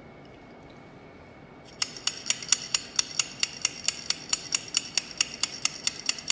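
Metal stirrer worked up and down inside a stainless-steel coffee-cup calorimeter, clinking against the cup and lid about four times a second with a bright ring, starting about two seconds in; the solution is being stirred while its temperature is brought up to its maximum.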